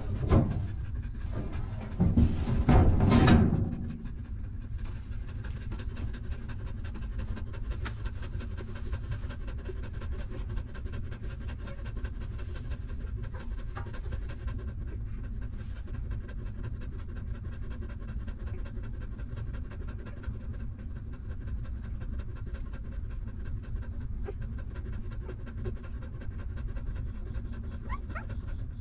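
A dog panting steadily with quick, even breaths: a nursing mother dog. A brief louder sound comes about two to three seconds in.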